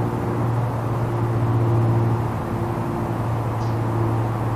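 Pressure washer running: a steady low motor hum with the hiss of water spraying against the car.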